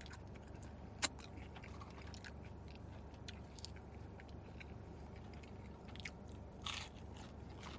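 Faint chewing and biting of fast food, with scattered small clicks and crunches and a sharper click about a second in. A short louder noise comes near the end, over a steady low hum.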